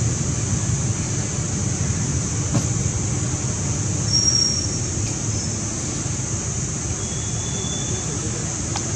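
Steady low background rumble with a constant high hiss, with no call from the monkey; a brief thin whistle sounds about four seconds in and a fainter one near the end.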